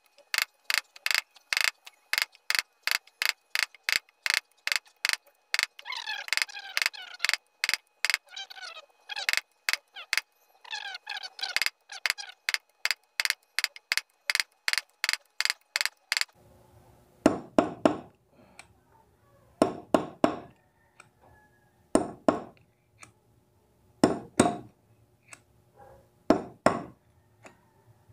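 Hammer striking a steel punch to drive a worn sealed bearing out of a bicycle hub: quick metallic taps about three a second. About two-thirds through they give way to heavier blows, two at a time, every two seconds or so.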